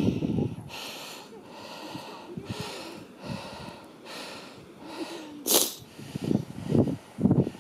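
Heavy, rhythmic breathing close to the microphone, about one breath a second, with a sharp snort-like exhale about five and a half seconds in, as from someone hiking hard at altitude. Low thumps come near the end.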